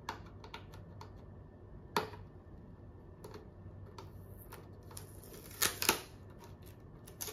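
Small cardboard box being handled and picked open at its packing tape: scattered light clicks and crackles of cardboard and tape, loudest twice in quick succession just before six seconds in.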